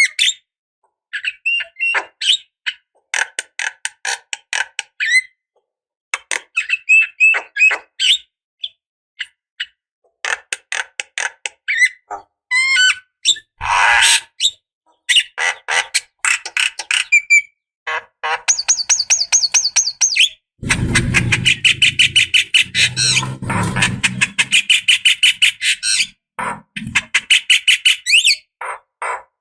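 Javan myna singing: a varied run of short chirps, whistles and harsh chattering notes, with a fast, rasping rattle about two-thirds of the way through.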